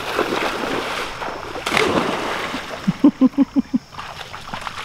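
Splashing of feet running through shallow muddy floodwater, with one bigger splash near the middle. About three seconds in comes a quick string of six short pitched sounds in under a second, louder than the splashing.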